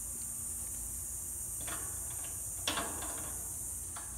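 A few short clicks and scrapes of a screwdriver working on the metal wire fan guard of an AC condenser, the sharpest about two and a half seconds in, over a steady high chirring of crickets.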